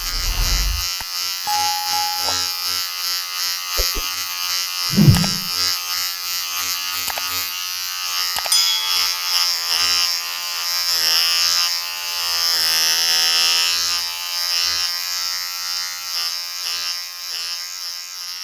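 Electric shaver running with a steady buzz whose pitch wavers slightly. There are a few low bumps, the loudest about five seconds in.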